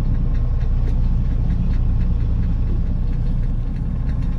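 A fishing boat's engine idling steadily, a constant low rumble with a fine even pulse.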